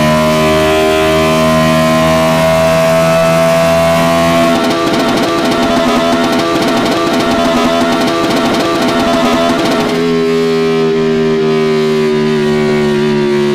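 Made-up car engine sound effect, buzzy and tonal like a synthesised motor: a steady note creeping upward, then a rough fluttering stretch from about four seconds in, then a fresh note slowly falling for the last few seconds.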